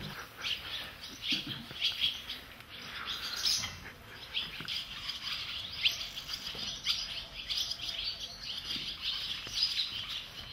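Small birds chirping: many short, high chirps, scattered and unbroken throughout.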